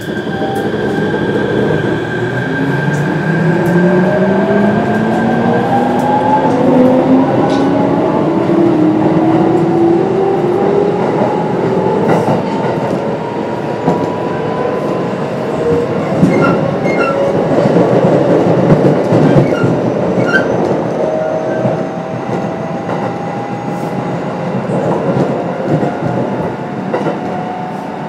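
Mitsubishi IGBT-VVVF inverter and traction motors of a Kintetsu 7000 series electric train whining as it accelerates from a stop: several tones climb steeply together over the first dozen seconds, then keep rising slowly as speed builds. Underneath are the rumble of the running train and clicks of wheels over rail joints.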